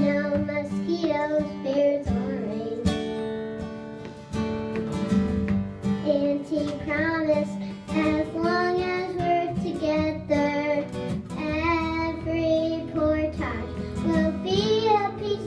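A young girl singing a song, accompanied by a fiddle and a strummed acoustic guitar.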